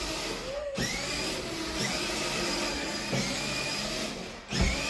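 Small electric drive motors of a 6V kids' ride-on bumper car whirring as it drives. The whirr cuts out briefly twice and whines back up each time, with a thump near the end.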